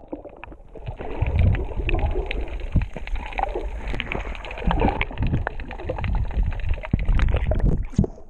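Muffled underwater sound of a dive into the sea: water rushing and bubbling with small clicks and knocks, all dull and low with the brightness gone. Near the end the sound opens up again as the diver surfaces.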